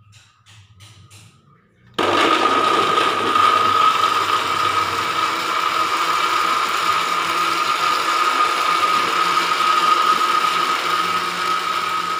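Electric kitchen blender motor switched on about two seconds in, then running steadily at speed with a high whine. A few faint clicks come before it starts.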